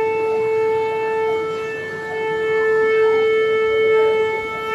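Conch shell (shankh) blown in one long, steady note with a slight swell near the end.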